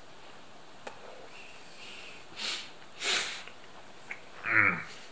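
A person sniffing twice through the nose, the second sniff louder. Near the end comes a short voiced sound that slides down in pitch.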